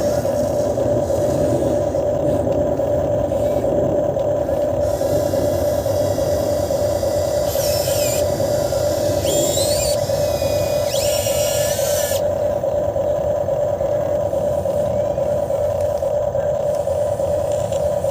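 RC excavator running with a steady, mid-pitched motor whine. Around the middle come three short high-pitched whines that slide up and down in pitch as the machine works.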